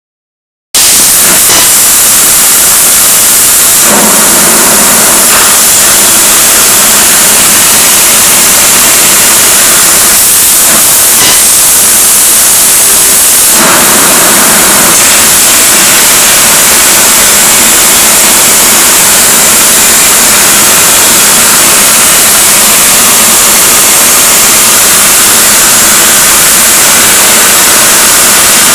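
A fiber laser cutter cutting 8 mm aluminium plate: a loud, steady hiss from the assist-gas jet blowing through the cut, its tone shifting a few times as the cut goes on.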